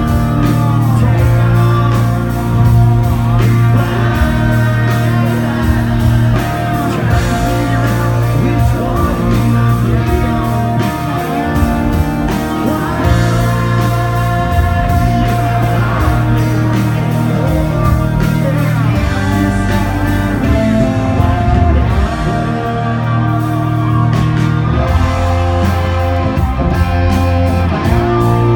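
Live country band playing a song, with a male lead vocal over electric guitars, bass and a steady drum beat.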